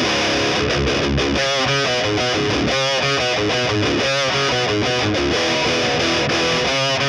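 Overdriven electric guitar riff played on a Gibson Les Paul Tribute through a Horizon Devices Precision Drive pedal into a PRS MT15 amp and a 2x12 cabinet loaded with Celestion Greenback speakers, miked with a Shure SM57.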